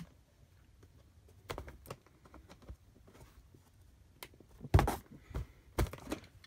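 A cardboard laptop box being handled and turned around by its handle: a few scattered knocks and rustles, the loudest bump a little under five seconds in.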